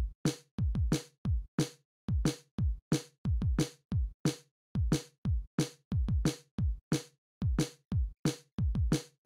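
Background music: an electronic drum-machine beat with a deep kick drum, about two to three hits a second.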